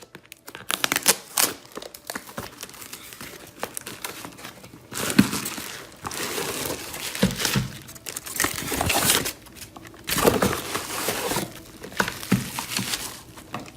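Packaging being opened by hand: cardboard and plastic wrapping crinkling and tearing in irregular bursts, with small knocks and clicks in between.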